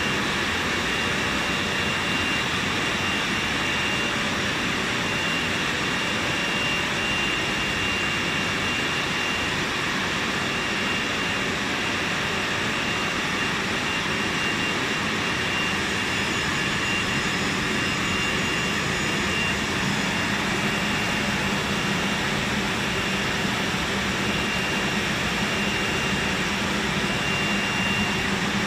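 Steam shrink tunnel and hot air dryer running: a steady rush of steam and blown air, with a thin high whine held throughout.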